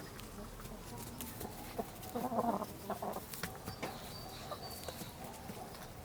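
Chickens clucking, with a short burst of clucks about two to three seconds in and scattered small clicks and taps around them.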